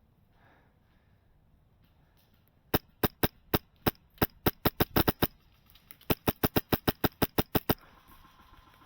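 Airsoft gun firing two quick strings of sharp shots, about a dozen each, with a short pause between them.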